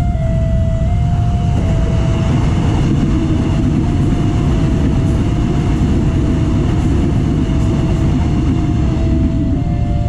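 An electric commuter train passes over a level crossing, its rumble and wheel noise thickening from about a second and a half in and easing off near the end. Under it the crossing's electronic alarm sounds a slow melody, stepping between a few steady tones.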